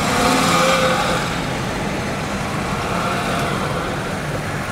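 Engine and road noise of a vehicle driving slowly along a busy market street, with the steady din of the traffic around it.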